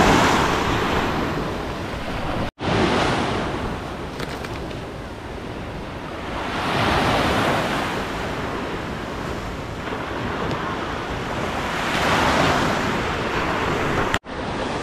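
Sea waves breaking and washing up on the beach, the surf swelling louder and fading as each wave comes in, several seconds apart. The sound cuts out for an instant twice, once near the start and once near the end.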